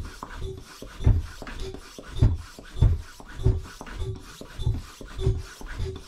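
Lezyne Pressure Overdrive floor pump being stroked by hand to charge its air chamber to about 160 psi for seating a tubeless tyre. It makes a steady rhythm of low thumps, a little under two strokes a second, with a short tone between strokes.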